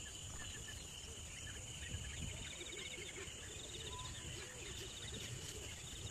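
Bush ambience: steady insect trilling, made up of crickets and other insects, with scattered short bird chirps and a run of soft low repeated calls in the middle.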